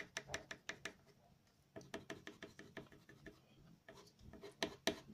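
Colored pencil scratching on paper in a rapid series of short flicked strokes, laying down fur texture, with a brief pause about a second in.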